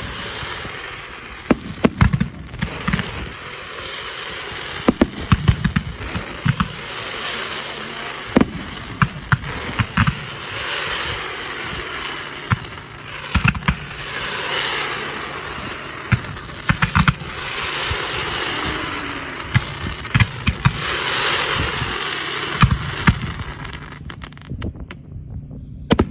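Fireworks going off: a rapid series of sharp bangs over a crackling hiss that swells and fades in waves.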